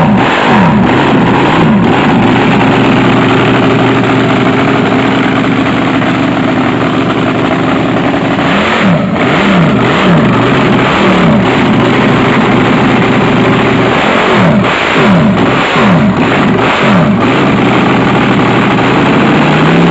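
Supercharged alcohol-burning V8 of a 1977 Sanger picklefork ski-hydro drag boat, freshly built, running loud at a fast idle with sharp throttle blips that rise and fall in pitch. The blips come in clusters at the start, around halfway and again about three-quarters through, and the engine revs up at the very end. It is running with two dead cylinders from bad spark plugs.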